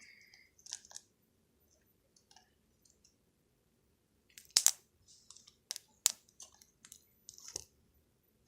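Slime being squeezed and worked by hand, giving a scattered string of sticky clicks and pops, the sharpest about four and a half and six seconds in.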